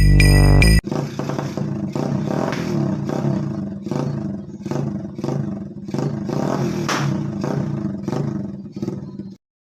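Electronic music cuts off, then the 110 cc single-cylinder four-stroke engine of a Rusi Korak 110 minibike runs with an aftermarket Daeng Sai 4 exhaust. The note rises and falls as the throttle is blipped. The sound cuts off sharply near the end.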